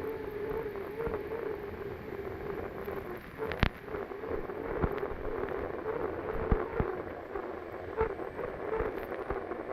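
Onboard sound of an unlimited hydroplane's gas-turbine engine running with a steady drone and rushing wind noise, broken by irregular sharp knocks, the loudest about three and a half and six and a half seconds in.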